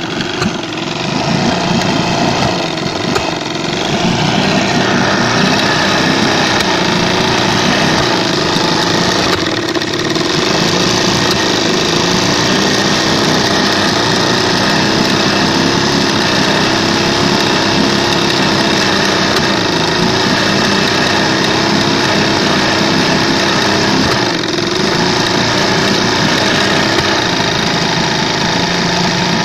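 Evinrude 20 hp outboard motor running unevenly and sneezing: brief stumbles about ten seconds in and again near the end, the sign of a misfire.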